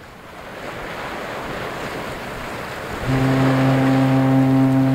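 Surf and wind fading in, then about three seconds in a ship's horn starts a long, steady, low blast over the waves.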